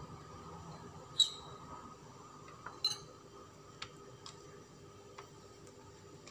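Hands pressing sushi rice in a clear plastic roll mould on a melamine plate: a few light clicks and clinks, the sharpest about a second in with a short ring and another near three seconds, then softer ticks. A faint steady hum runs underneath.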